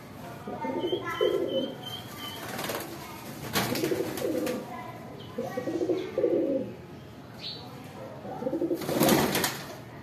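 Domestic pigeons cooing again and again in low, warbling phrases. There are high, thin repeated notes a second or two in, and a burst of wing flapping near the end.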